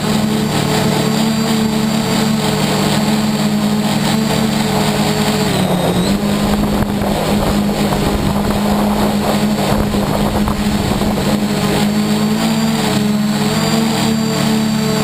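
Y6 coaxial multirotor's electric motors and propellers buzzing steadily in flight, heard close up from the camera on the craft. Their pitch dips briefly and comes back up about six seconds in as the throttle changes, with a faint high motor whine on top.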